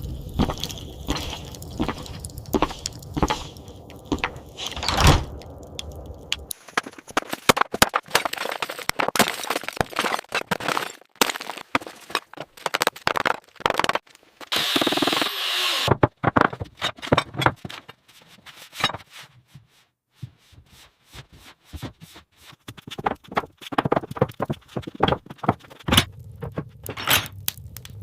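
Restoration work noise: an irregular run of knocks, taps and cracks, with a low rumble under the first few seconds and again near the end, and a burst of hissing about halfway through.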